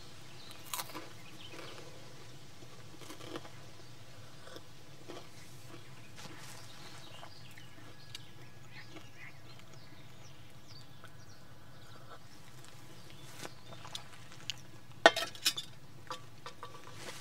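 Faint steady background with scattered small clicks and knocks. A quick cluster of sharp clicks about fifteen seconds in is the loudest.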